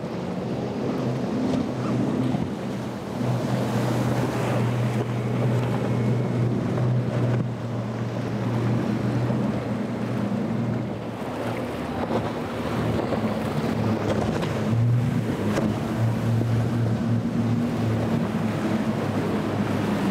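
Outboard engines of center-console boats running at speed, a steady drone whose pitch shifts a few times, over the rush and crash of waves and spray against the hulls. Wind buffets the microphone.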